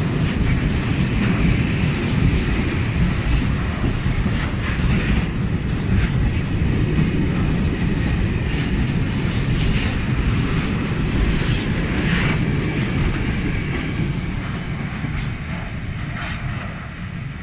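Freight train of tank wagons rolling past close by: a steady rumble with scattered clicks of wheels over rail joints, fading as the last wagons draw away near the end.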